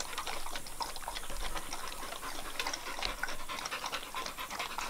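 Dogs panting, with small irregular clicks from a dog at a metal bowl.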